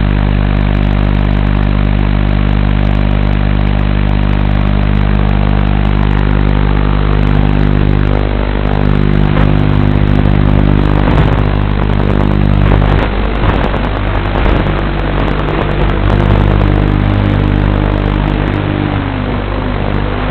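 Racing quadcopter's brushless motors and propellers running: a steady hum of several tones at first, then rising and falling in pitch as the throttle changes from about halfway through.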